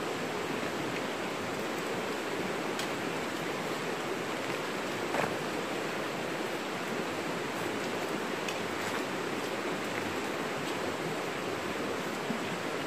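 Steady rushing of a flowing river, with a few faint clicks scattered through it.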